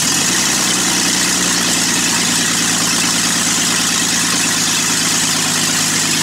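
Toyota Land Cruiser FJ62's 3F-E inline-six idling steadily just after start-up, very loud because no exhaust system is fitted. The O2 sensors are unplugged, so it is not running perfectly.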